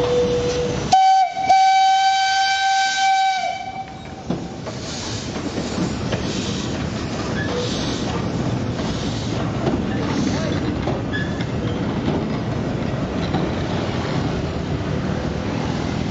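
Steam whistle of steam locomotive D 14 10 blowing one steady note for about two and a half seconds, starting about a second in, just after a lower tone stops. Then the locomotive and its coaches roll past with steam hissing, amid motorcycle traffic.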